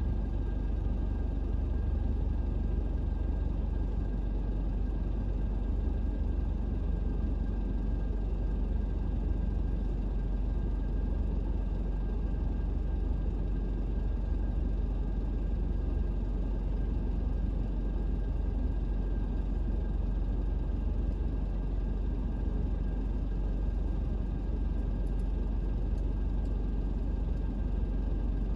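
Steady low rumble of a vehicle driving, unchanging throughout, with a faint steady high whine above it.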